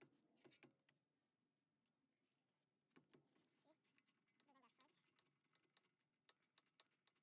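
Near silence with faint scattered clicks and taps, and a few brief wavering squeaks after about four and a half seconds.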